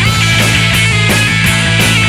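Rock band playing live: distorted electric guitar, bass guitar and drum kit, with cymbal and drum hits keeping a steady beat about three times a second.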